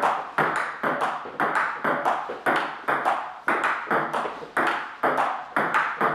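Table tennis rally: the ball knocking off the bats and bouncing on the table in a quick, even rhythm of about three knocks a second. Each knock leaves a short ringing tail in the wood-panelled room.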